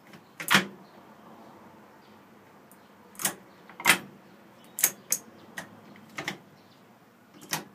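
Shift mechanism of a 2000 Hyundai Accent manual transaxle being worked by hand on the bench with its end cover off, giving about eight sharp metallic clicks and clunks at irregular intervals as the gears are shifted, the loudest about half a second in.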